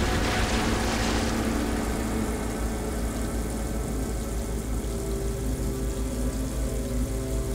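A low, pulsing drone of dark suspense underscore. A hiss fades out in the first second or so, and long held tones come in about halfway through.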